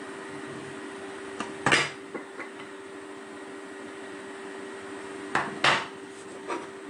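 Pieces of a hard soap dish knocked and clattered together as they are handled and set down: a few clicks and knocks about a second and a half in, and again near the end, over a steady low hum.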